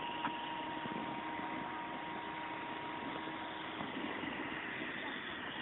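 Electric model helicopter (Ikarus Eco 7) flying: a steady motor and rotor whine over a hiss.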